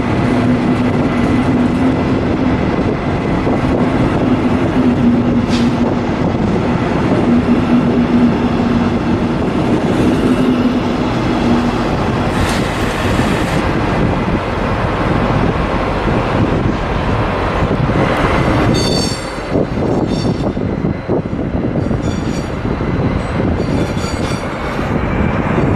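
Train running on rails with a loud, steady rumble and a low hum over the first half. Short, high-pitched squeals from the wheels or brakes break in several times in the last seven seconds.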